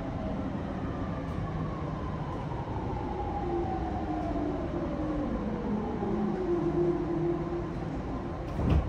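Sotetsu 10000 series train's Mitsubishi IGBT-VVVF inverter, the so-called "ghost inverter", heard from inside the car as several whining tones falling slowly in pitch while the train slows under braking, over the steady rumble of the running train. A sudden loud burst sounds near the end.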